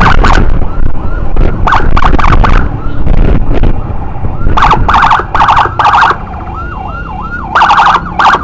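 Ambulance siren wailing in quick up-and-down cycles, cut across by repeated short, loud horn blasts in bursts of two to four, over a heavy low rumble of road and wind noise that eases after the first few seconds.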